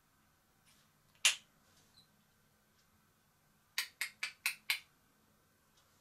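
One sharp click, then a couple of seconds later a quick run of five sharp clicks in under a second.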